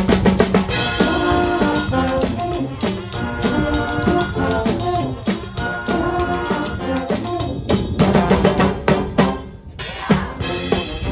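Brass band playing live, with sousaphones, trumpets and a drum kit keeping a beat. The sound drops out briefly near the end, then the band plays on.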